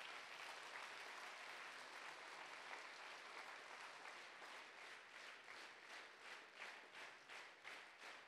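Audience applauding. About halfway through, the clapping falls into a steady rhythm in unison, a little under three claps a second.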